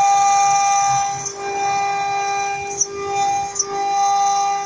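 A CNC router spindle with an end mill is cutting aluminum-plastic composite panel and acrylic sheet: a steady high-pitched whine with several overtones. Its loudness dips briefly a few times.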